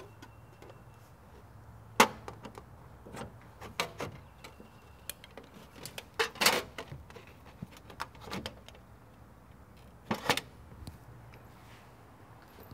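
Tin snips cutting an angle into a piece of coated-metal step flashing: a scatter of sharp snips and metal clicks. The loudest comes about two seconds in, with a cluster around six and a half seconds and another around ten seconds.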